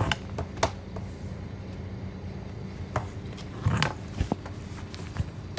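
Steady low hum of the O-Train's diesel railcar engine heard from inside the car, with scattered sharp clicks and knocks, a cluster of them a little past halfway.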